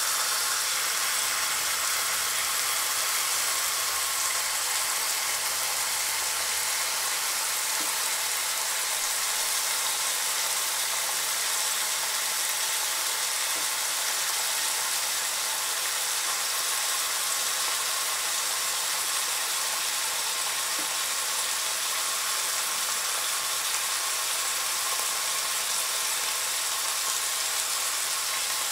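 Unsmoked back bacon rashers sizzling steadily in a hot carbon steel frying pan, an even hiss that holds at one level throughout.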